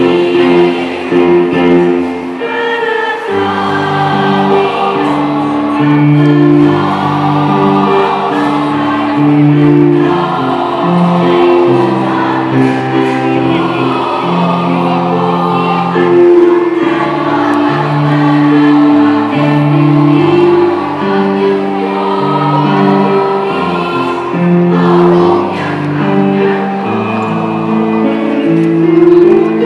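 A mixed choir of school students singing a song together in parts, in choral harmony.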